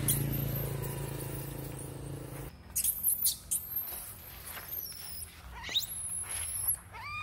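High-pitched squeals and short rising cries, typical of a baby monkey, over a low steady hum that cuts off about two and a half seconds in.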